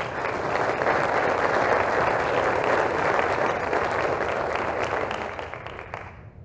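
Audience applause in an auditorium, many people clapping together, steady for about five seconds and then fading away.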